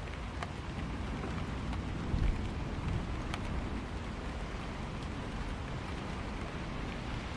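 Steady heavy rain falling during a thunderstorm, with scattered sharper drop hits and a brief low rumble of distant thunder about two seconds in.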